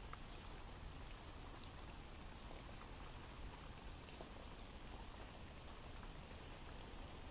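Faint recorded rain ambience: an even patter of rain with scattered single drops.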